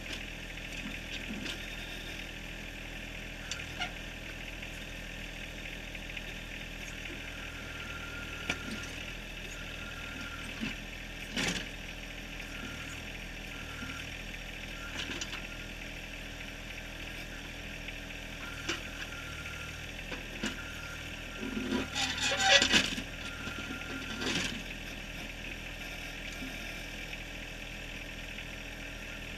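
John Deere 1023R compact tractor's three-cylinder diesel running steadily while it works the backhoe, with a few sharp knocks and scrapes of the bucket against rock, several close together a little past two-thirds through.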